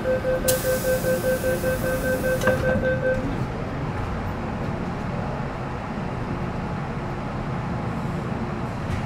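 An MTR Metro Cammell M-Train's door-closing warning: a rapid beeping tone for about three seconds, over a loud hiss of air from the door gear. A single thump about two and a half seconds in is the doors shutting. After that the standing train's steady low rumble carries on.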